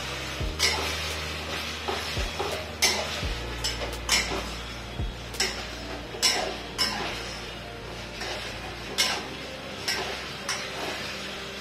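A spatula scraping and knocking against a metal kadai as mustard-greens saag is stirred into a ghee tempering, in irregular strokes about once a second. A soft frying sizzle runs underneath.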